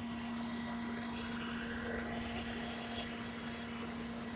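Fire engine running steadily at the scene, driving its pump to feed a hose line: a constant, even drone with one unchanging tone.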